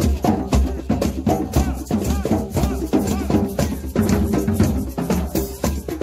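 Street drum circle: several hand-played djembes and a drum kit with cymbal playing a fast, dense, steady rhythm together.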